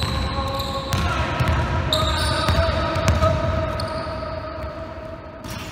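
Basketball bouncing on a hardwood gym floor during dribbling, a run of low thuds, with several steady held tones behind it.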